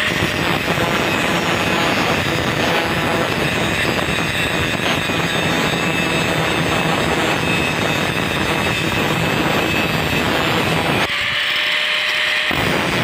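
Electric grinder wheel grinding the fingers of a Hero Splendor Plus motorcycle clutch basket, a loud steady metal-on-abrasive grinding. It lightens for a second or so near the end, then goes on. The grinding smooths out the notches the clutch plates have worn into the basket fingers, the cause of the plates sticking and slipping.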